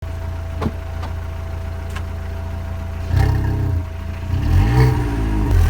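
VW Polo 6N2 1.4 MPI four-cylinder petrol engine idling through a replacement exhaust with the precat and resonator deleted, blipped briefly about three seconds in and then revved up and back down to idle near the end.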